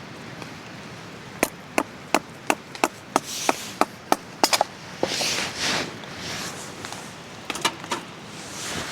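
Wood being chopped into kindling: about a dozen sharp blade strikes, roughly three a second, then a pause and a few lighter knocks near the end.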